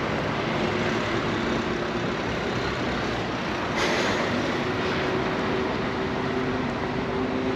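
Road traffic with a heavy vehicle's engine running, a steady hum of low tones under the general noise, and a short hiss about four seconds in.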